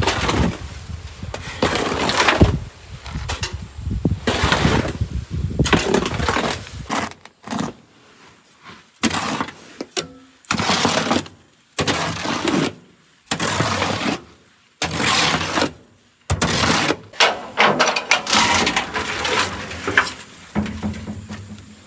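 Shovel scraping into a load of fine sand and throwing it off, in repeated scoops about every second or so with short pauses between.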